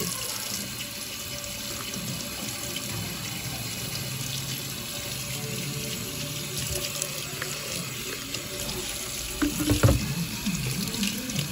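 Kitchen tap running into a stainless steel sink while hands are rinsed of flour and egg batter under the stream, with a brief louder knock about ten seconds in.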